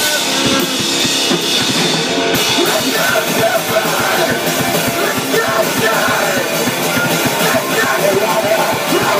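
Rock band playing live in a small room: electric guitar and a drum kit with fast, continuous hits, and a vocalist on a microphone.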